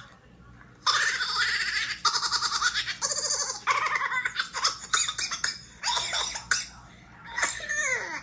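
High-pitched laughter in repeated bursts of quick pulses, with falling pitch sweeps near the end.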